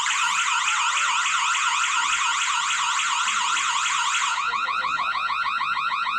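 Electronic siren of a PG103 security alarm system going off, a fast repeating rising wail about four times a second, the system triggered and in alarm. Its pattern changes about four seconds in.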